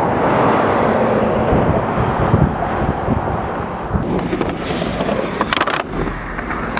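Skateboard wheels rolling over rough asphalt with a steady rumble. After about four seconds, a few sharp clacks of the skateboard's deck and tail on concrete follow.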